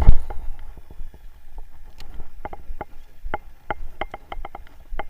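A heavy thump right at the start, then a run of irregular hollow knocks and taps, several a second, like gear and hands knocking about in a small wooden fishing boat.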